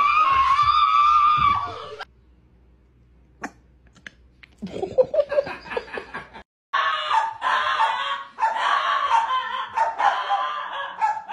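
A person gives one long, high scream lasting about two seconds. After a quiet pause, a small white long-haired dog howls in a long run of high, wavering cries.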